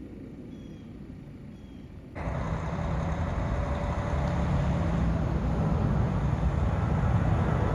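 A faint low rumble with a few short high chirps. About two seconds in, it switches abruptly to loud jet aircraft engine noise that keeps growing louder.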